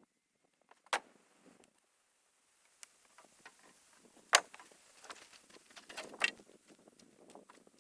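Scattered short clicks and knocks: a sharp click about a second in, the loudest knock about four and a half seconds in, and a few more close together around six seconds.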